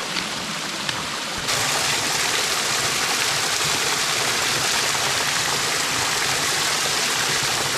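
Small mountain creek cascade pouring over rocks: a steady rush of falling water that gets louder about a second and a half in.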